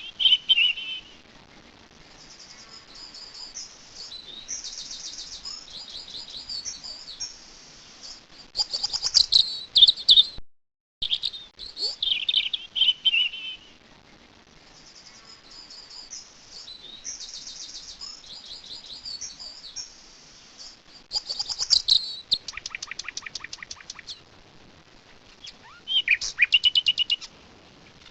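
A songbird singing: varied phrases of high chirps, whistles and rapid trills, with a brief gap about ten seconds in before the song starts again.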